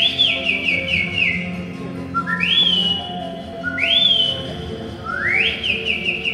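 Whistled birdcall imitation accompanying a shadow bird: four high calls, each swooping up and then holding or breaking into a quick run of falling notes, over a soft musical backing.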